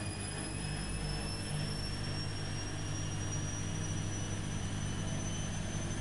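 Washing machine running with a steady low hum and a high motor whine that slowly rises in pitch, as the drum speeds up.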